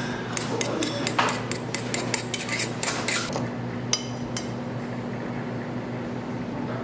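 Metal chopsticks tapping and scraping in a small sauce dish, mixing wasabi into soy sauce: a quick run of clinks over the first three seconds and a couple more about four seconds in, over a steady low hum.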